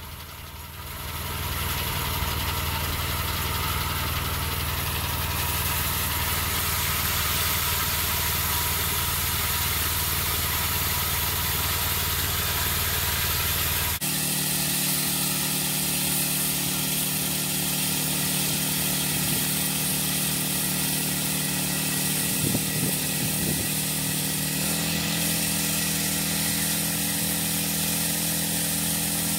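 Small gas engine of a homemade band sawmill running steadily and driving the band blade. It runs at a lower speed at first, then jumps abruptly to a higher speed about halfway through as the saw head moves up to the log.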